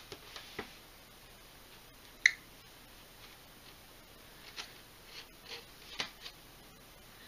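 Faint rustling and small clicks from a glossy printed leaflet being handled and turned over, with one sharp click about two seconds in.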